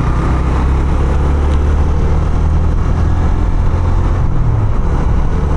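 Honda CB 150F motorcycle's single-cylinder engine running steadily under way, with other road traffic around.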